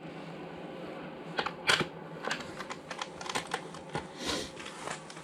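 Irregular clicks and taps from handling an ice fishing rod and reel, over a steady hiss.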